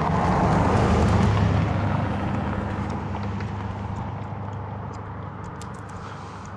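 A car driving past. Its engine hum and tyre noise swell to a peak about a second in, then fade away slowly.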